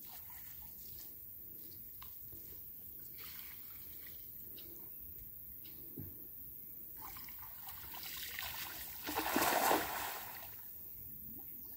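Water trickling and dripping as a cast net is lifted and gathered in chest-deep floodwater, with small splashes. About eight seconds in, a louder stretch of splashing as the man swims off through the water.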